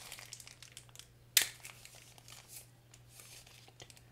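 Clear plastic wrapping crinkling as the wrapped watch straps are handled, with scattered crackles and one sharp tap about a second and a half in.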